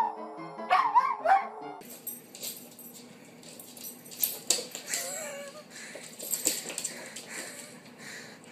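Dogs howling along with piano notes for the first couple of seconds, the loudest part. Then a dog scuffles and its claws click on a wooden floor, with a short whine about five seconds in.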